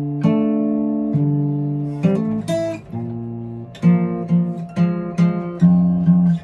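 Acoustic guitar strumming chords that ring out, with a run of quicker, shorter strums starting about four seconds in.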